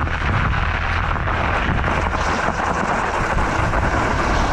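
Steady rushing wind noise on the microphone, with a fat-bike tyre rolling over crusted snow.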